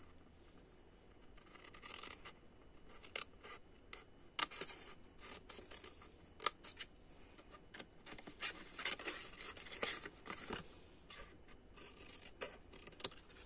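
Small scissors snipping through white cardstock in a series of short cuts along the fold lines, with sharp snip clicks a few seconds apart and paper rustling between them.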